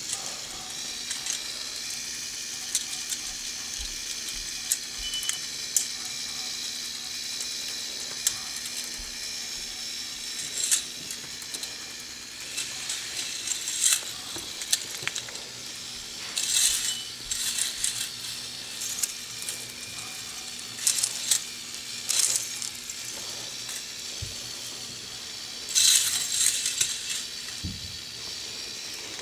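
K'nex roller coaster running: plastic cars rolling and rattling along the plastic track, a steady whir beneath repeated clicks and clatters, the loudest near the end.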